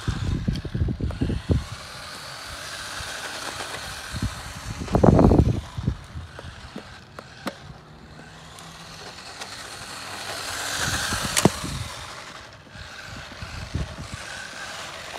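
Small brushed electric motor of a 1/16-scale RC drift car whining and its hard street tyres rolling over rough asphalt, fading and swelling as it moves; it is loudest as it passes close about ten to eleven seconds in, with a sharp click. A few low rumbles near the start and about five seconds in.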